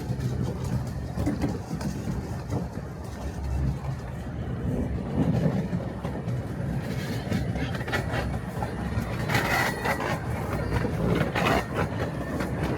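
Miniature railway train running along its track: a steady low rumble with scattered wheel clicks, and a few louder noisy bursts in the second half.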